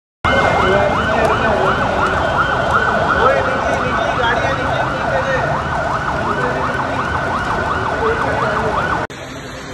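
Siren wailing in fast rising-and-falling sweeps, a few a second. It cuts off suddenly about nine seconds in.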